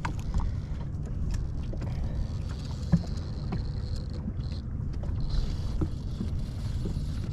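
Low rumble of wind and water around a small fishing boat, with scattered light clicks and knocks from the boat and fishing tackle; one sharper knock about three seconds in.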